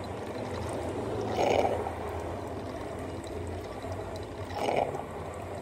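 DeLonghi drip coffee maker brewing: a steady hum and hiss, with two louder gurgling spurts, about a second and a half in and again near the end.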